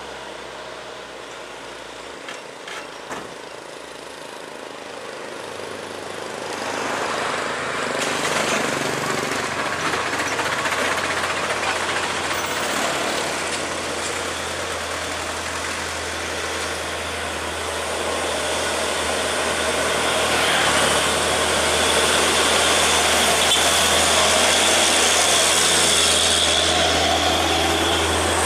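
Road traffic with heavy diesel trucks and a motorbike passing on a steep hill climb, their engines running under load with a steady low drone. The noise grows louder from about six seconds in and is loudest near the end.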